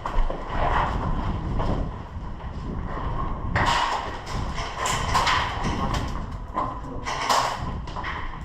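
Thumps and rustling handling noise from a body-worn camera as a player moves in airsoft gear, with a sharp thump at the start and a few short hissy scrapes about three and a half, five and seven seconds in.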